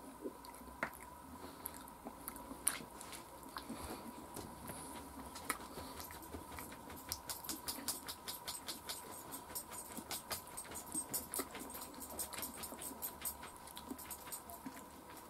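Faint, quick little clicks and crackles of fingers pulling apart and picking at fried chicken pieces, coming thickest in the middle.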